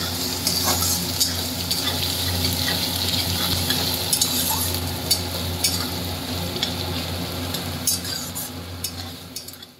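Chopped onions sizzling in hot oil in a metal kadai, stirred with a flat metal spatula that scrapes and clicks against the pan; the onions are being fried until browned. The sound fades out near the end.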